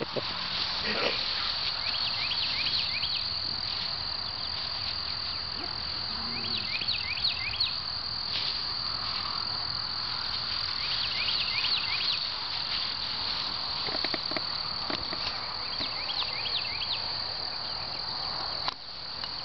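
A steady, high-pitched chorus of field insects, crickets or similar, trilling without a break. Over it come small clusters of short chirps every few seconds.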